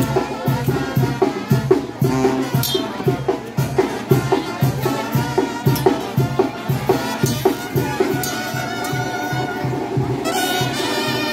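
Live band music with brass and a drum beat, the accompaniment for a traditional dance. The beat stops about eight seconds in and the band holds long sustained notes.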